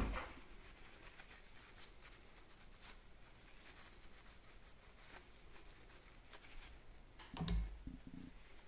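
Small metal bearing-carriage parts handled on a workbench: a sharp knock as something is set down at the start, faint clicks and scrapes, then a short cluster of knocks near the end.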